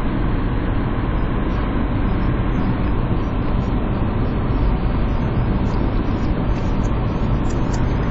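Steady road and engine noise heard inside a moving car's cabin, a constant low rumble without breaks.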